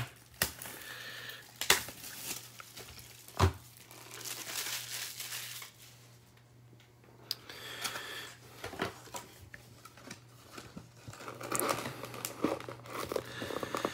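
Cellophane shrink wrap crinkling and tearing as it is stripped off a cardboard trading-card hobby box, with a few sharp snaps early on, then the cardboard box being handled and its lid folded open.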